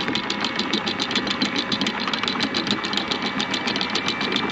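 Electric anchor windlass hauling in the chain, a rapid, even clatter of about ten clicks a second with a faint steady motor whine, as the anchor is being raised.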